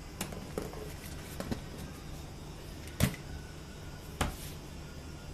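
Scattered knocks and clicks of objects being handled, the loudest about three seconds in, over a steady low hum.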